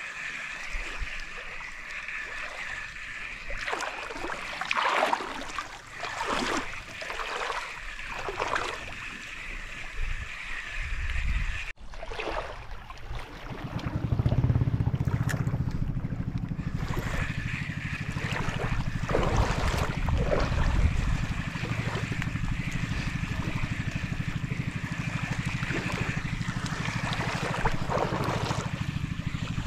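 Shallow seawater sloshing and splashing around the feet of a wading angler. From about halfway through, wind rumbles heavily on the microphone.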